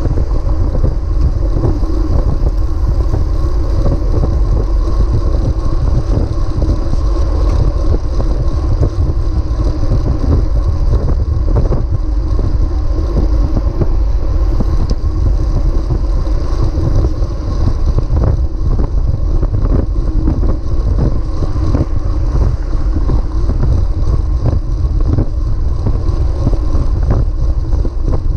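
Steady wind rush buffeting a bike-mounted action camera's microphone as a road bicycle rides at speed.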